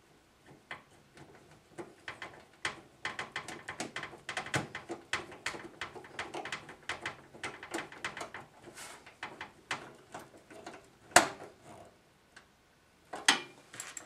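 Small irregular metal clicks, taps and scrapes as a screw is fitted and driven through a graphics card's mounting bracket into a PC case. A sharper click comes near the end.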